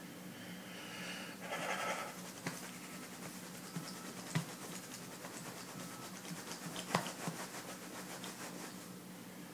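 A man's deep breath out through the mouth about a second in, taken as part of a slow relaxation breathing exercise. It is followed by faint scratching and two small knocks from the handheld phone rubbing against the couch, over a low steady hum.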